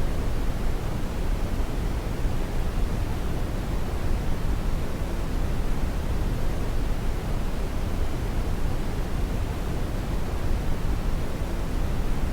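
Steady synthetic noise sold as white noise for baby sleep, heavier in the low end than the highs, so it sounds like a deep, even hiss with no changes.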